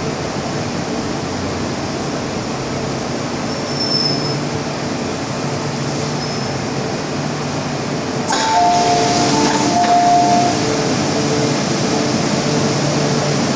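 Inside an MTR M-Train electric multiple unit: steady running noise with a low hum as the train slows into a station. About eight seconds in, the doors open with a sudden burst of hiss and a two-tone chime that plays twice.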